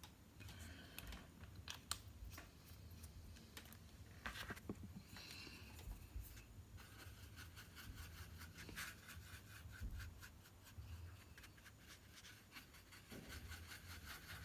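Faint scratches and light clicks as a small brush stirs paint on a palette, over a steady low hum.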